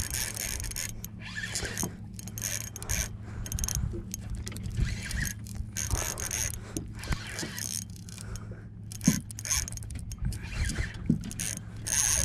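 Spinning reel being cranked in short spells against a large hooked fish, its gears whirring and scraping, over a steady low hum.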